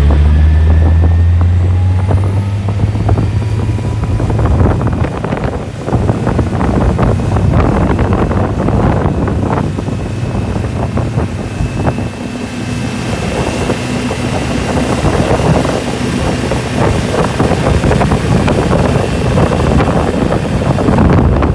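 Yanmar EX26Z boat's engine running hard under way on a sea trial, with the rush of the wake and wind. A thin high whine rises over the first few seconds and then holds steady, while the low engine hum is strongest at the start.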